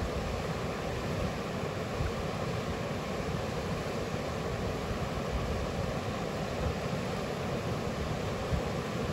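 Steady rush of river water running over stones, with wind buffeting the microphone in uneven low gusts.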